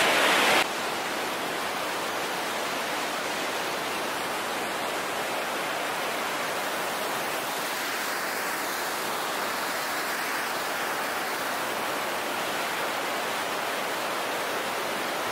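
Iguazu Falls: a steady, even rush of falling water and spray. It drops a little in level about half a second in, then holds unchanged.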